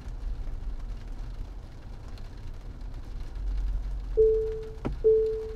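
Low rumble of a Tesla Model Y rolling slowly on wet pavement, then from about four seconds in two single-pitch Park Assist warning beeps about a second apart as the car closes on the curb, with a sharp click between them.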